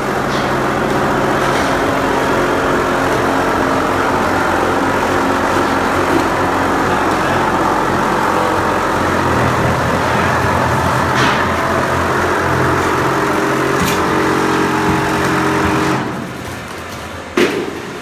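TUPO 8 automatic plastering machine running as its carriage climbs the mast: a steady motor hum with several tones over a rough, rushing noise. It cuts off about two seconds before the end, followed by a single sharp knock.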